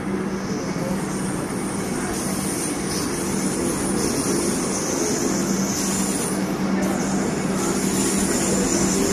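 Vande Bharat Express electric trainset running past: a steady noise of wheels on the rails under a constant low hum, growing slightly louder toward the end.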